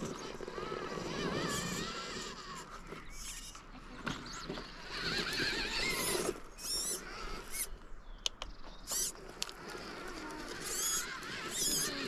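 FTX Ravine RC rock crawler's electric motor whining, its pitch wavering up and down as the throttle is worked. A few sharp clicks come a little past the middle.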